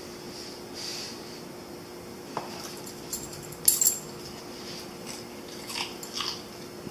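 A dog moving about on a tile floor: scattered light clicks, with a brief high jingle of collar tags a little before halfway, the loudest moment. A faint steady hum sits underneath.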